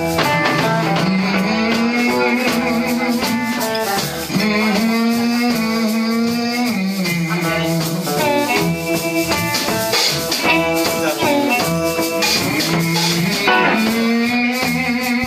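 Live blues band playing: harmonica wailing over electric guitar, electric bass and drum kit, which hold a repeating riff.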